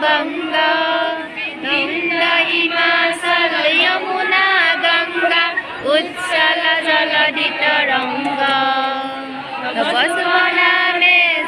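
Many voices singing together in unison, slow with long held notes.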